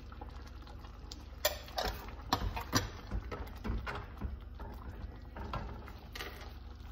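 Metal ladle knocking and scraping against the side of a cooking pot as thick curry gravy is stirred: a run of irregular clinks and knocks in the middle, over a steady low hum.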